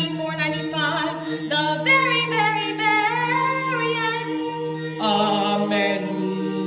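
A small group of voices singing together in held, overlapping notes of a musical theatre song. A new chord comes in about five seconds in.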